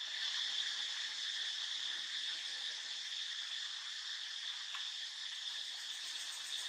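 Steady, high-pitched chorus of insects that holds without a break.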